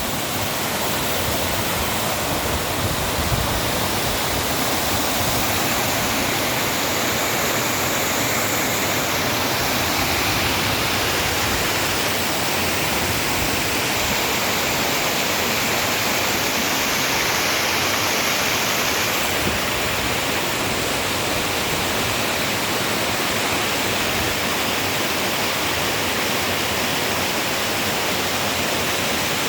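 A waterfall's falling water rushing in a steady, even roar of white noise.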